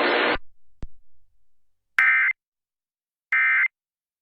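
Emergency Alert System end-of-message signal: two short warbling digital data bursts about a second apart, the SAME 'NNNN' code that marks the end of a warning. Before them, a steady radio hiss cuts off suddenly and a single click follows.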